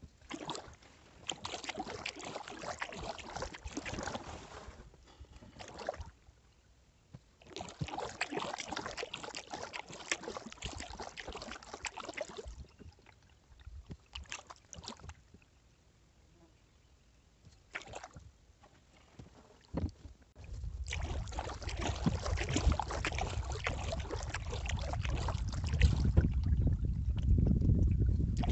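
Kayak paddle strokes: water splashing and dripping off the blades in spells of a few seconds, with quiet gaps between. About two-thirds of the way in, a steady low wind rumble on the microphone sets in and grows louder.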